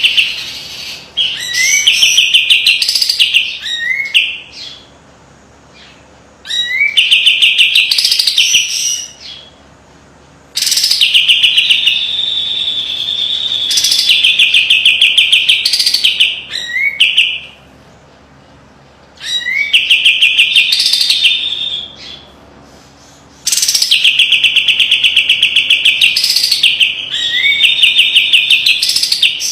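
Kapas tembak bulbul singing sharp, rapid trills (besetan), in phrases of about two to four seconds separated by short pauses.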